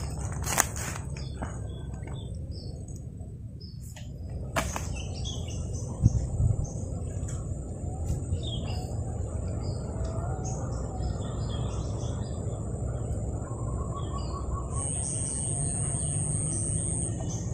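Wild birds chirping with many short, scattered high calls, over a steady thin high-pitched tone and a low steady rumble; a few sharp clicks near the start and a dull thump about six seconds in.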